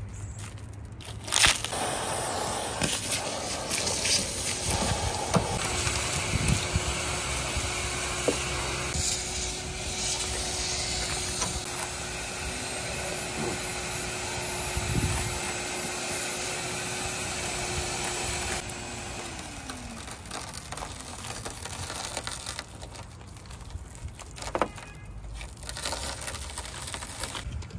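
Shattered tempered glass crunching and crackling as it is pulled out of an SUV's rear quarter-window opening, then scraping as the old urethane bead is cut from the frame with a cold-knife blade. Sharp clicks stand out now and then, and a steady hum runs under the noise through the first two-thirds, then drops in pitch and stops.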